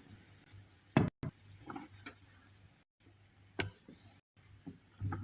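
A spoon knocking against a saucepan while the mixture is stirred: a few sharp, irregular knocks, the loudest about a second in, over a faint steady low hum.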